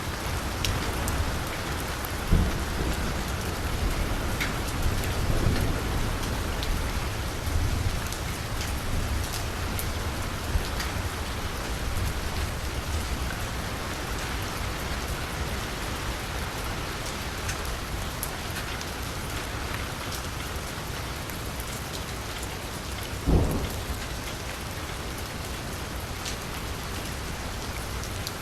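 Steady rain falling on a quiet street. A low rumble fades away over the first several seconds, and there are two louder single impacts, about two seconds in and again near the end.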